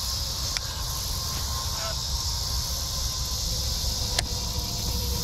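Steady high chorus of insects with a low rumble underneath, broken by two sharp clicks, one near the start and one about four seconds in.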